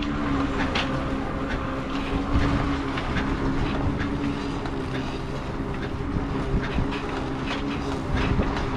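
A steady low motor hum on a sailing catamaran, with scattered clicks and wind and water noise, while the jib is rolled in on its furler.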